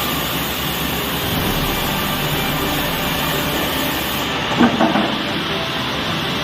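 Sawmill log-infeed machinery running steadily with a dense mechanical rattle and rumble, and a short louder squeal of metal a little past the middle.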